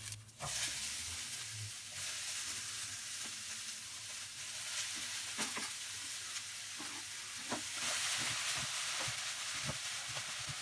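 Sliced red and green bell peppers sizzling steadily as they fry in olive oil in a frying pan, with a few short scrapes and knocks as they are stirred.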